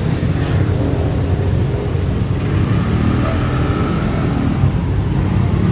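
Steady low engine rumble, with a faint row of light ticks about half a second in.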